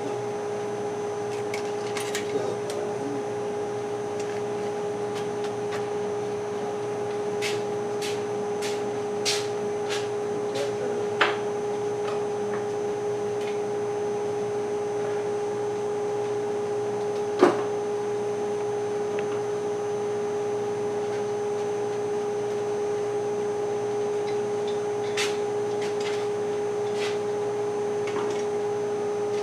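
A steady machine hum with one fixed low pitch, like an outdoor motor or compressor unit running, with scattered short sharp clicks and ticks over it.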